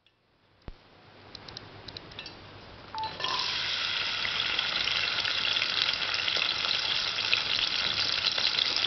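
Small red onions (shallots) dropped into hot oil in an aluminium pressure-cooker pan, sizzling and crackling steadily from about three seconds in. Before that there is a faint rising hiss and a single knock.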